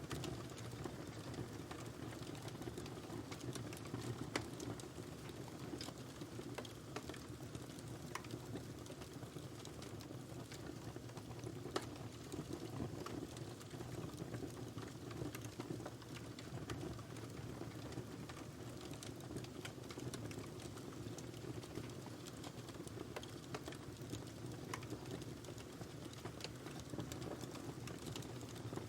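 Wood fire burning in a fireplace: a steady low rush of flame with many small, sharp crackles and pops scattered throughout, a couple of them louder.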